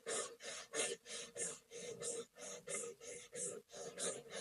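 A person doing rapid rhythmic breathing in a Kundalini yoga breathing exercise: short, sharp breaths, about three a second, evenly spaced.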